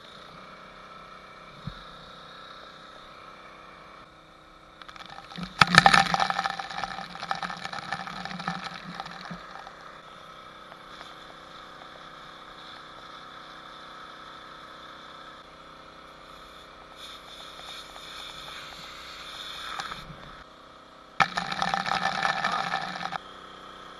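Portable engine-driven water pump running steadily at high throttle, with the rush of its jet of water. Twice the spray comes close and splashes loudly: for about four seconds starting some five seconds in, and again for about two seconds near the end.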